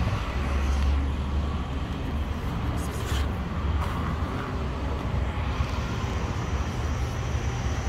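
Outdoor street ambience: a steady low rumble of road traffic, heaviest in the first few seconds.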